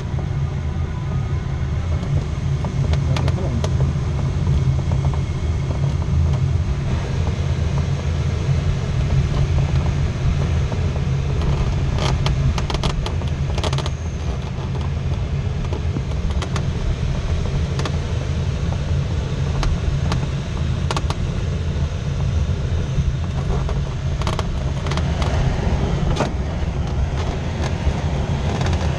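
Steady low rumble of air rushing past a glider's cockpit canopy in flight, with scattered short clicks and rattles.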